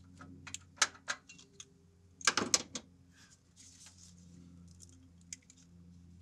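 Irregular metallic clicks and clinks of hand tools and fittings as the coolant return line is worked loose at a 2013 Subaru WRX's turbocharger. The loudest comes as a quick cluster a little over two seconds in, with fainter ticks afterward, over a steady low hum.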